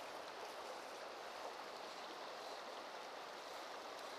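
Shallow river running over stones: a faint, steady rush of water.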